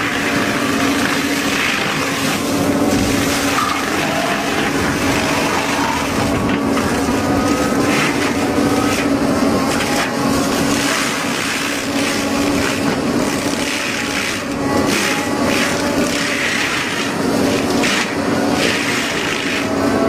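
Hyundai tracked excavator's diesel engine running under steady load while a mulching head on its arm shreds brush and small trees, a constant drone with irregular cracks and clatter of wood being chewed up.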